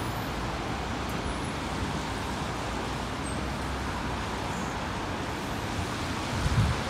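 Steady hiss of street traffic. Low wind buffeting on the microphone starts near the end.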